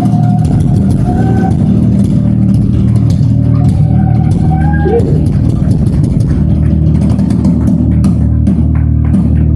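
A live band playing loud, bass-heavy music with bass guitar and guitar. A voice sings a few held, bending notes in the first half.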